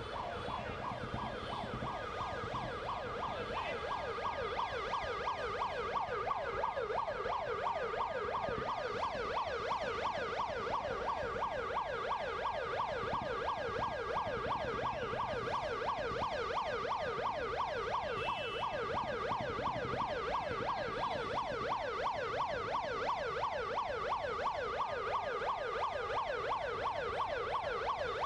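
Ambulance siren sounding continuously in a fast yelp, sweeping up and down in pitch several times a second without a break.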